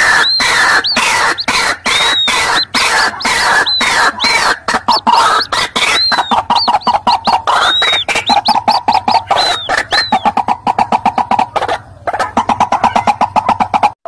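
White-breasted waterhens calling, chicks and adults together: a loud, fast, noisy chatter of repeated notes with high arched peeps over it. About halfway through, the calls settle into a rapid, even run of notes, broken once briefly near the end.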